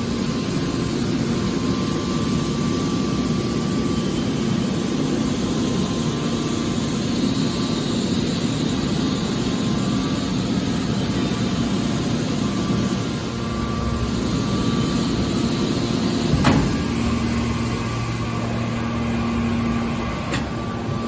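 Hydraulic scrap car baler running: its power unit drones steadily, with one sharp knock about sixteen seconds in.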